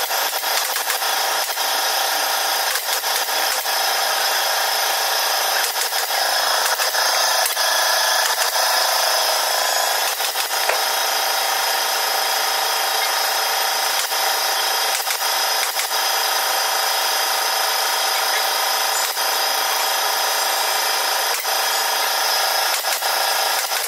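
Pneumatic upholstery staple gun driving staples into a wooden sofa frame: sharp clicks at irregular intervals, a second or several apart, over a steady hiss.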